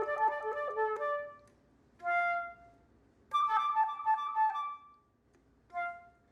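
Flute playing flurries of quick notes separated by pauses: a run that fades out about a second and a half in, a short held note, a second quick flurry near the middle, and a brief note near the end.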